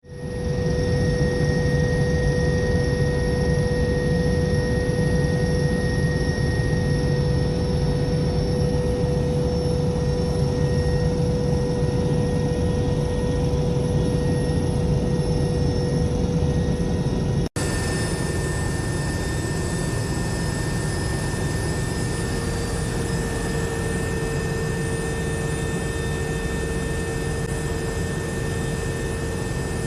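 Steady aircraft engine drone with a constant high whine. It breaks off for an instant about halfway through, then a similar drone carries on slightly quieter.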